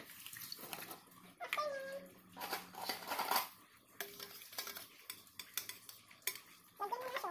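A utensil scraping and clinking against the inside of a large stainless steel pot while the contents are stirred, in short irregular strokes.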